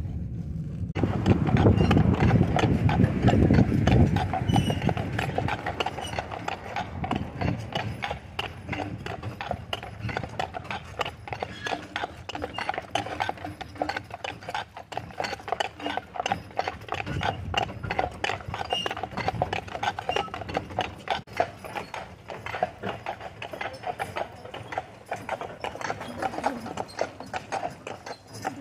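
Two harnessed draft horses' hooves clip-clopping steadily on asphalt as they pull a wagon. A heavier low rumble sits under the hoofbeats in the first few seconds.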